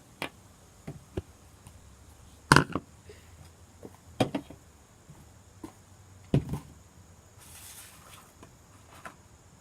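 Irregular knocks and clicks of a spoon, bowl and containers being handled while mixing slime ingredients, the loudest about two and a half seconds in, with a short soft hiss near the end.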